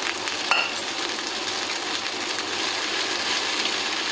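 Vermicelli and tuna sauce sizzling in a hot frying pan over a high flame, a steady frying hiss, with a short clink about half a second in.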